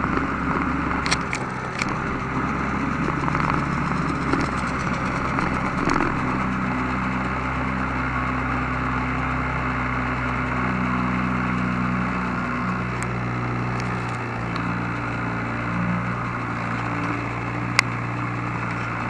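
Snowmobile engine running steadily, with small shifts in pitch. A few sharp clicks cut through it, the loudest near the end.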